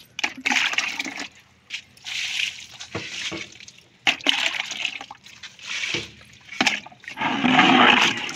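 Water being poured out from a bucket onto potted plants and the paving in about four separate bursts, the longest and loudest near the end.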